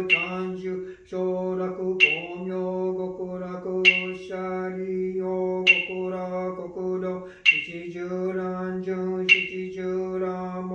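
A man chanting a Buddhist sutra in a steady monotone, with short breaks for breath. A sharp tap sounds about every two seconds, keeping time with the chant.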